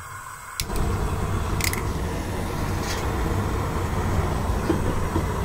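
Gas stove burner lit with a sharp click, the flame catching and then burning with a steady rumbling rush of gas. A couple more clicks follow.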